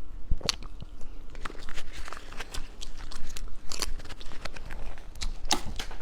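Crisp food being bitten and chewed close to the microphone: an irregular run of sharp crunching crackles.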